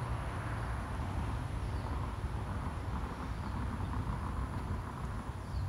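Outdoor ambience: a steady low rumble with a faint hiss over it, and a few faint high chirps.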